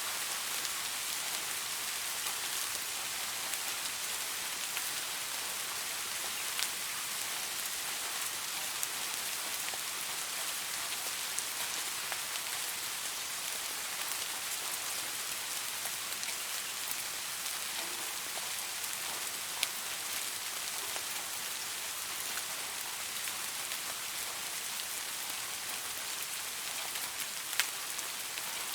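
Steady rain, an even hiss with scattered sharp ticks of individual drops striking nearby.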